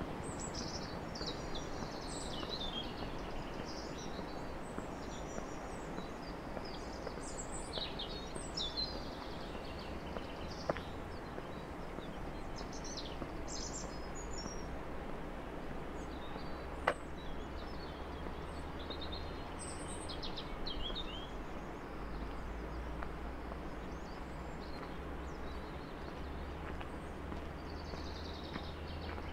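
Small songbirds chirping and trilling in short repeated phrases over a steady outdoor background noise, with two sharp clicks, one about eleven seconds in and one about seventeen seconds in.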